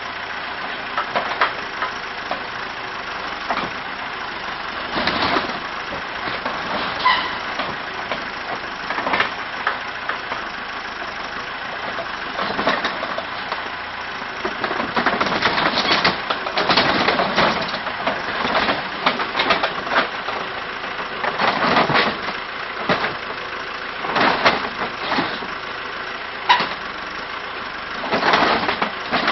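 A backhoe's engine runs steadily while its bucket tears into a mobile home's roof and walls: repeated cracking, crunching and splintering of wood and panelling, busier in the second half.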